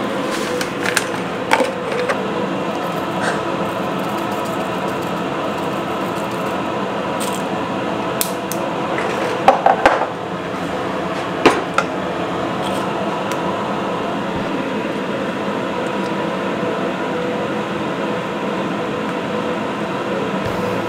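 A steady kitchen hum with a few sharp clinks and knocks of kitchenware: two near the start, a loud cluster about ten seconds in and one more about a second and a half later.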